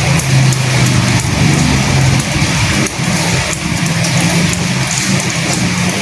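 Steady rain, a dense hiss with many separate drops tapping, over a low wavering rumble of wind.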